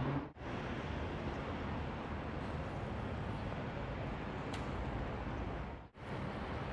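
Outdoor city ambience: a steady wash of traffic and crowd hubbub. It dips out briefly about a third of a second in and again near the end.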